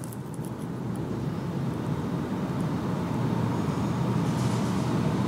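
A road vehicle approaching on the street, its engine and tyre noise growing steadily louder.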